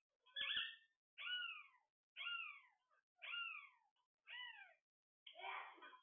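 Alexandrine parakeet giving a series of six calls, about one a second, each sliding down in pitch; the last call is harsher.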